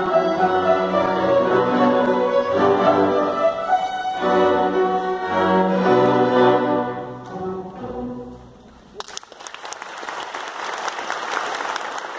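String orchestra with harp holding its closing chords, which fade out about eight seconds in. The audience then breaks into applause.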